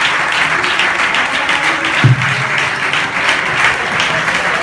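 Audience applauding steadily, with a single low note ringing out about two seconds in.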